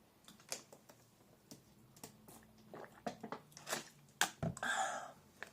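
A person swigging a sports drink: scattered wet mouth clicks and swallows, then a breathy exhale about four and a half seconds in.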